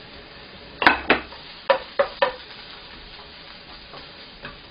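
Onion, carrot and shiitake sizzling faintly in a frying pan while a wooden spatula stirs them, knocking against the pan about five times in quick succession in the first half, with a single knock near the end.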